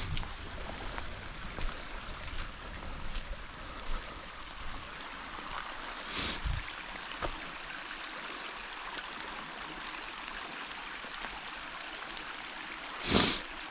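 A small forest creek running steadily, with scattered light ticks of rain drips in the first half. A short rustle about halfway through and a louder brief rustle near the end.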